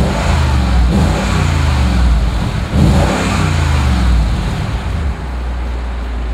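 Mercedes-Benz SL55 AMG's supercharged 5.5-litre V8, revved repeatedly while the car stands still, each rev falling back, then settling to a steady idle about five seconds in.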